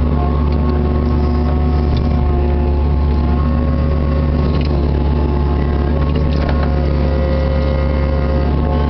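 Kubota KX61-3 mini excavator's three-cylinder diesel engine running steadily under load, heard from inside the cab, with whining tones that shift in pitch as the arm and bucket are worked, and a few faint clicks.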